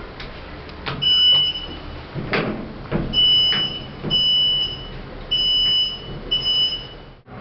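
The lift's control panel beeps about five times, each beep a short high tone with the beeps a second or so apart, while sharp knocks and clicks come between them. The lift will not move and has locked its door with a passenger inside.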